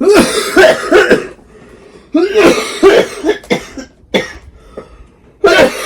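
A person coughing in fits: a burst of several coughs, a short pause, another run of coughs, two single coughs, then a fresh burst near the end.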